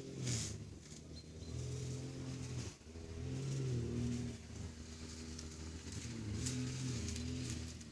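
A low engine hum running steadily, swelling and easing every second or two.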